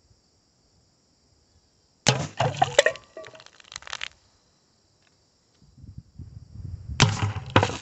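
Hatsan 125 .22 spring-piston air rifle shots at tin cans: about two seconds in, a sharp shot and a can being hit and knocked off, clattering for a second or two. Near the end a second cluster of sharp impacts comes as another shot strikes the remaining can.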